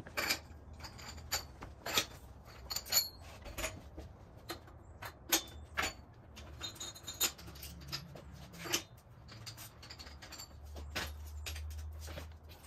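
Irregular sharp metallic clicks and clinks of a hand wrench working on a BMX bike's rear wheel and frame.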